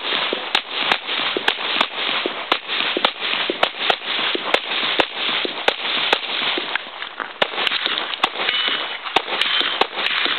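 Handgun fired in a long string of single shots, roughly two a second, each a sharp crack, over a steady hiss.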